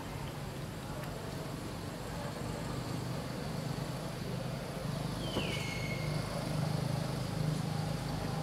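Steady low hum of a running motor vehicle engine, swelling slightly in the second half. About five seconds in, a single short high call glides down in pitch.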